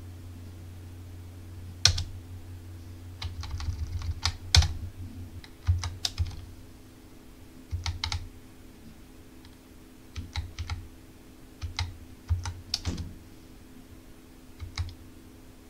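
Computer keyboard keystrokes: single key presses and short runs of presses, irregularly spaced, over a faint steady low hum.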